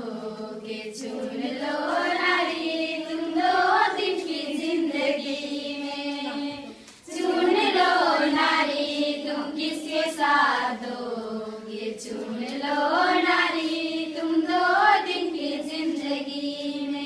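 A group of girls singing a song together in unison, with a short break for breath about seven seconds in.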